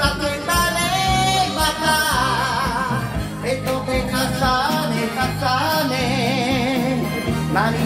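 A man singing an enka song into a karaoke microphone with wavering vibrato on held notes, over a karaoke backing track.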